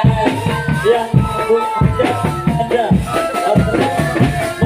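Drum band music: drums beating a steady rhythm with a melody line and rattling percussion over it.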